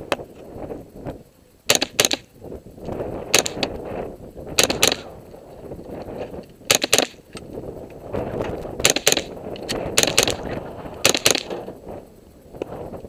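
Rapid .22 LR shots from an AR-15 fitted with a CMMG .22 conversion kit, about thirteen sharp cracks, mostly fired in quick pairs a few tenths of a second apart.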